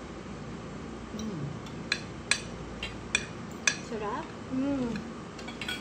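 Metal spoons and forks clinking against plates and bowls during a meal: about six short, sharp clinks, most of them in the middle seconds. A quiet voice hums or murmurs briefly between them.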